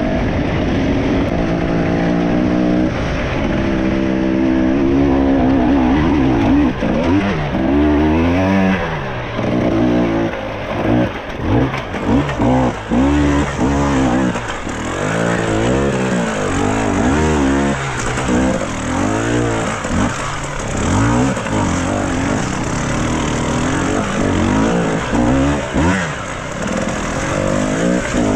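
Enduro dirt bike engine under a rider's throttle. It holds fairly steady for the first several seconds, then revs up and down again and again, about once a second, as the rider works through the rough trail.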